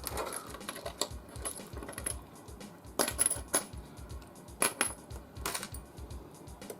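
Small metal screws and a screwdriver clinking and tapping against a metal computer case: a string of sharp, irregular metallic clicks, with the firmest ones about three seconds in and again near five seconds.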